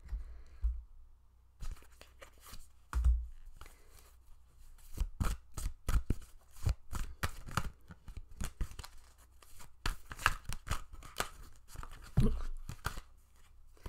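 Tarot cards being handled and shuffled: a run of irregular, crisp card snaps and papery rustles that starts after a short pause and thickens in the middle, with a couple of dull thumps.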